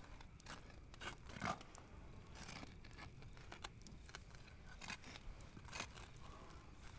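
Log campfire crackling faintly, with irregular snaps and pops; one louder pop comes about a second and a half in.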